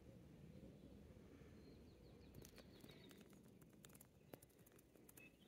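Near silence: a faint low background rumble with a few faint bird chirps and scattered soft clicks in the second half.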